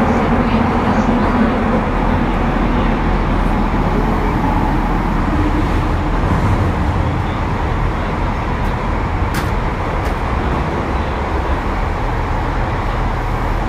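Kyoto Municipal Subway Tozai Line Series 50 train running through the tunnel, heard from inside the car: a steady rumble of wheels and tunnel noise. A faint humming tone from the traction motors can be heard in the first few seconds.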